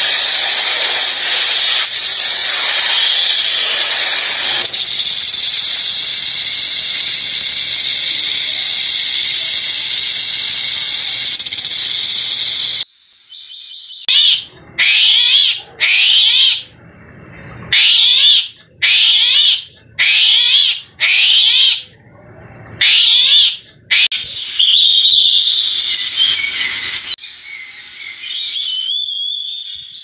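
Snake hissing: a loud, steady hiss for the first dozen seconds. It then gives way to an armadillo's calls, a run of about ten short high-pitched calls, each sliding down in pitch, then a few seconds of unbroken calling and quieter calls near the end.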